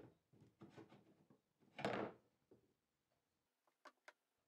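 Cast-iron base plate of a HV516 bench face vise being worked off its steel guide rods and lead screw on a wooden bench top: small metal knocks and rubs, then one louder sliding rub about half a second long near two seconds in, and two small clicks near the end.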